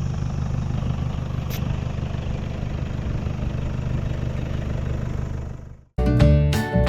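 A motor vehicle's engine idling with a steady low rumble. It fades out about five and a half seconds in, and music begins just before the end.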